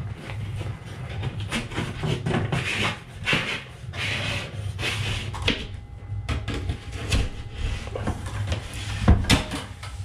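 Fish tape being fed through a wall cavity and drawn out of a hole in the drywall: repeated scraping swishes and clicks as the tape rubs and rattles against the wall, with a sharp knock about nine seconds in.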